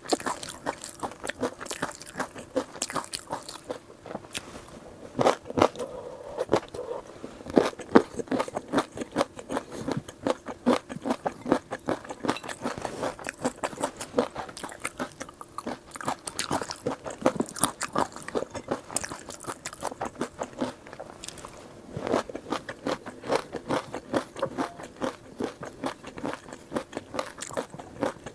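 Close-miked chewing and crunching of crunchy food, a dense run of rapid sharp crunches, with louder bites about five to eight seconds in and again about two-thirds of the way through.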